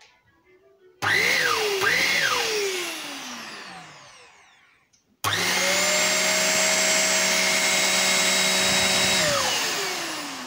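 smarock S10 Pro 500 W handheld mattress vacuum switched on: its motor whine comes up, is cut and restarted almost at once, then falls in pitch as the motor winds down over a few seconds. About five seconds in it is switched on again, runs at a steady pitch for about four seconds, then is switched off and winds down.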